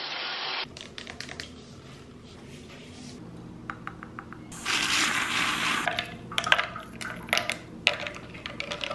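A string of short household sounds: a brief rush of shower water that cuts off abruptly, scattered light clicks, a loud burst of hiss about halfway, then ice cubes clinking against a glass tumbler near the end.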